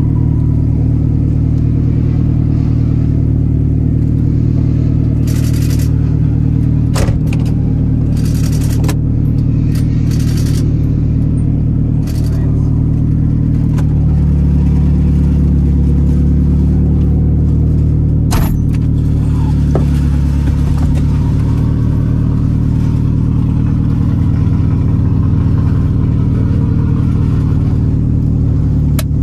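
Nissan 240SX's CA18DET turbocharged four-cylinder engine running up close at a fairly steady speed, its note shifting slightly about halfway through. A few short hisses and sharp clicks come over it in the first third and once more later.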